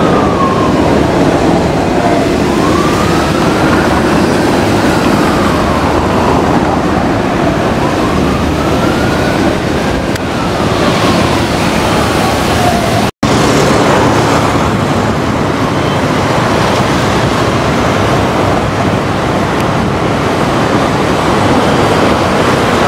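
Military helicopters, UH-60 Black Hawks and a Mil Mi-17, flying over as a loud steady rotor and turbine din. A siren wails slowly up and down twice in the first half. The sound cuts out for an instant about 13 seconds in.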